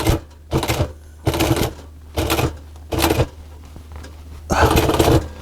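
Sewing machine run in about five short bursts of stitching, each about half a second long, as the work is fed slowly round a corner, over a steady low hum.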